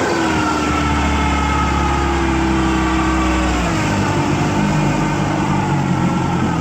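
1967 Evinrude Fastwin 18 hp two-cylinder two-stroke outboard motor running, its engine speed falling sharply at the start and again a little past halfway as it is throttled back.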